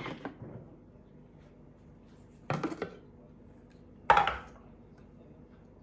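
Two short clatters of hard plastic and metal from the Thermomix: a few quick knocks about two and a half seconds in, then a louder clunk with a brief ring about four seconds in, as the lid is lifted off the mixing bowl.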